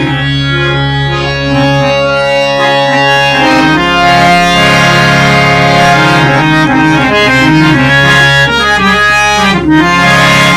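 Hand-pumped harmonium being played: a steady low drone held under a melody of changing reed notes.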